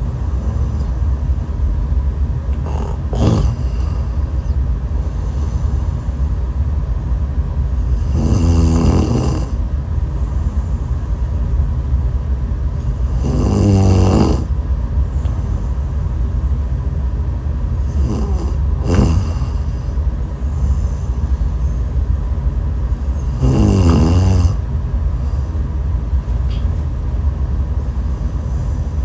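A woman snoring in her sleep, one pitched, wavering snore about every five seconds, five in all, over a steady low rumble.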